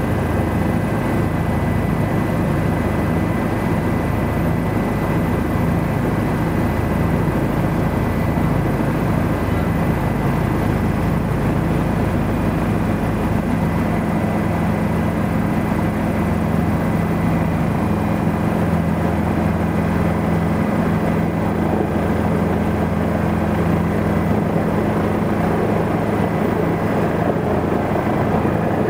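Helicopter in flight: a steady loud drone with a constant thin high whine over it.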